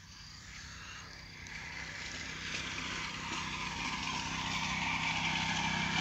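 A motor vehicle's engine growing steadily louder as it approaches.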